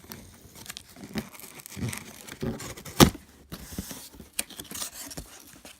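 A cardboard shipping box being opened: irregular tearing and crinkling of cardboard and packaging, with one sharp, loud crack about three seconds in.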